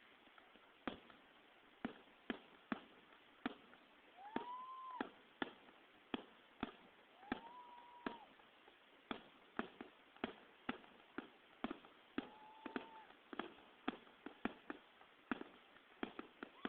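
Fireworks going off: a string of sharp pops and bangs at an irregular rate, with a few short tones that rise, hold and fall away, about a second each.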